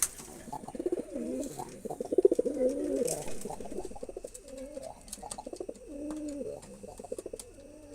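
Male pigeon cooing in courtship of a female: a string of low coo phrases, each rising then falling in pitch, repeated one after another, with a few light clicks over them.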